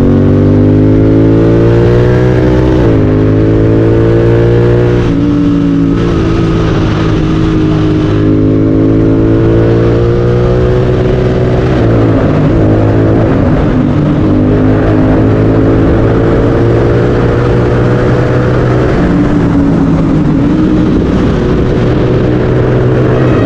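Royal Enfield Continental GT 650 parallel-twin engine running through a Red Rooster aftermarket exhaust, heard onboard under acceleration. The pitch climbs and drops back several times as the rider shifts gears, with a steadier stretch in the middle.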